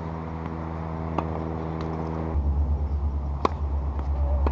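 A steady low engine hum. About two seconds in it drops to a lower, pulsing rumble. A few sharp clicks sound over it, the loudest about three and a half seconds in.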